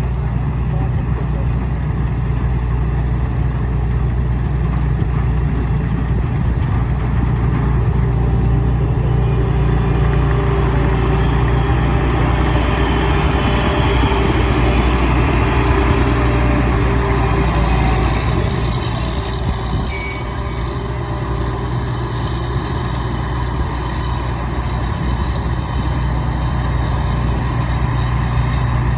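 Rice combine harvester running steadily, its engine holding a constant deep hum.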